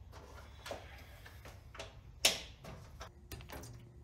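Scattered light clicks and knocks of tools and parts being handled in a car's engine bay during disassembly, with one sharper knock a little past halfway.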